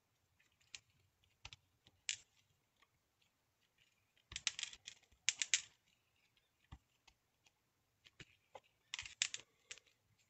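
Light clicks, taps and paper rustles of hands handling a clear acrylic stamp block on paper, bunched into quick flurries about four seconds in and again about nine seconds in.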